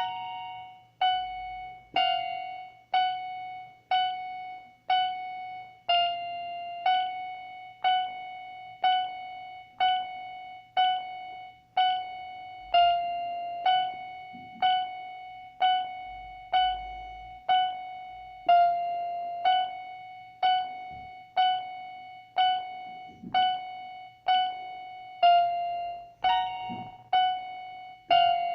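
Electronic keyboard playing a slow, simple tune of single notes, about one a second, each struck and left to die away. It stays mostly on the same high note, with a higher note now and then.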